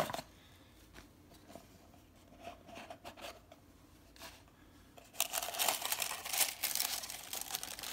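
Gift box being opened: a few faint taps and handling noises, then about five seconds in, tissue paper inside the box crinkling and rustling as hands push into it.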